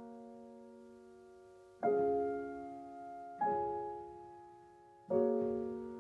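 Slow solo piano background music: three soft chords struck about a second and a half apart, each left to ring and fade.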